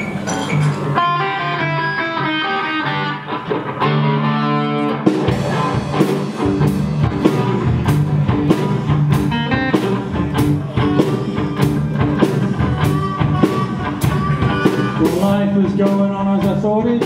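Live blues band playing an instrumental intro: guitar alone at first, then the drums and bass come in with a steady beat about five seconds in.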